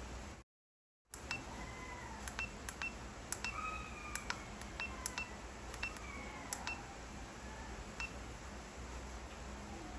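Keypad buttons on a FNIRSI HRM-10 battery internal-resistance tester pressed one after another, about a dozen sharp clicks, most with a short high beep from the tester as each key registers. The sound cuts out completely for about half a second near the start.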